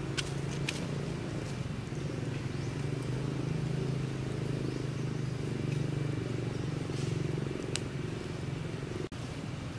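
A motor running steadily in the background, a low hum, with a few light clicks; the hum eases near the end and the sound drops out for an instant.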